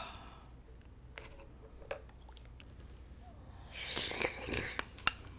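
Quiet tableware sounds at a meal: a few light clicks and taps of utensils against dishes, with a short breathy rustle about four seconds in and two sharp clicks near the end.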